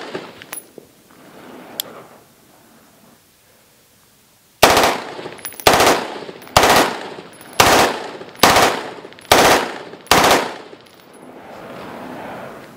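Select-fire AR-15 in 5.56 mm firing M193 ball in seven short full-auto bursts, roughly a second apart, starting about four and a half seconds in. It is a function test of the gas system with an H2 buffer, and the rifle is cycling smoothly.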